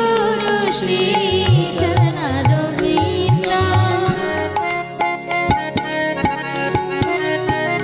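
Devotional music: a voice singing for the first couple of seconds over held instrumental notes, with hand-drum strokes whose low tone bends, in a steady rhythm.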